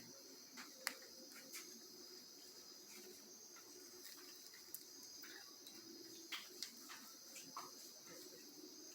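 Faint, steady, high-pitched insect chorus, with a few soft clicks scattered through it.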